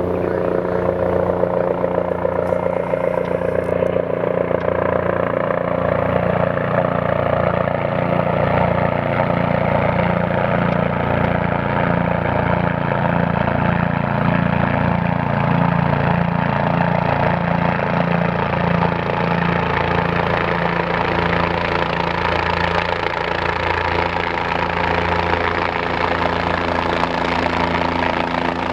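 Air ambulance helicopter flying close, its rotor beating and turbine running steadily. It swells in the first second, then holds loud and even.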